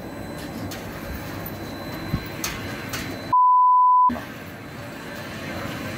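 A single pure beep at about 1 kHz, under a second long, comes a little over three seconds in and blanks out all other sound while it lasts: an edited-in censor bleep. Around it there is a low, even outdoor background noise with a few faint knocks.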